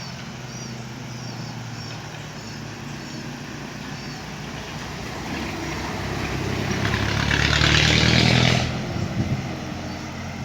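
A bus passes close by: its engine and tyre noise build up over a few seconds to the loudest point and drop away sharply about nine seconds in, over a steady engine hum.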